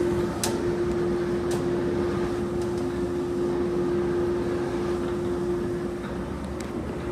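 Blower fan running with a steady, constant hum, with a few light clicks over it.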